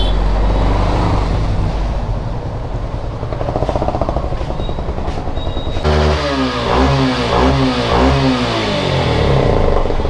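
Motorcycle engine running amid road noise; about six seconds in the sound changes abruptly to an engine revved up and down in quick repeated swells.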